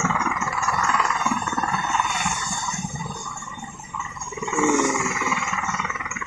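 Helicopter running as it comes in to land: a steady whirring rotor noise with a fast ticking high above it. It falls away briefly about four seconds in, then comes back.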